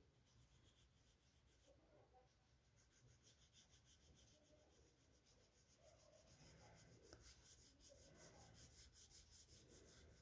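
Near silence, then from about six and a half seconds in faint, repeated scratching of a pink colouring stick rubbed back and forth on a paper workbook page, shading in a picture.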